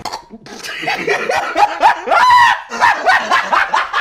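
A rapid run of short, high-pitched yelps, each rising and falling in pitch, starting about half a second in after a brief silence.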